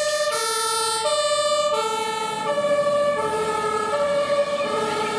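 Two-tone siren of a German fire engine, alternating steadily between a low and a high pitch about every three-quarters of a second.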